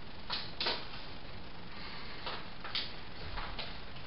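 A few faint, short rustles and scuffs of a person moving about and handling tools, over a steady low background hiss.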